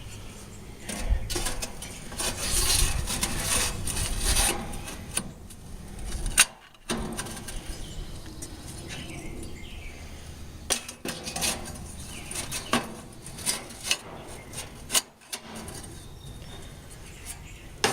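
Interlocking aluminium grill grate panels scraping and clanking against one another and the grill as they are slid into place and fitted together. There is a stretch of scraping, a sharp knock about six seconds in, then scattered metallic clicks and knocks.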